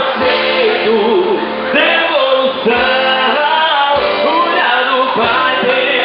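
A band playing with a man singing over it.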